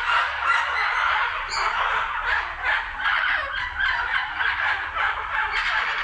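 Toucans calling: a steady run of harsh, rapidly pulsed calls, with a brief higher note about one and a half seconds in.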